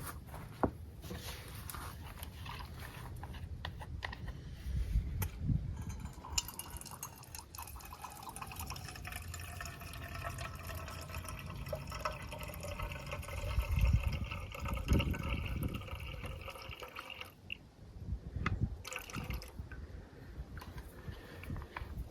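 Water being poured into a container for about ten seconds, the stream carrying a ringing tone that slowly falls in pitch, with knocks of things being handled before and after.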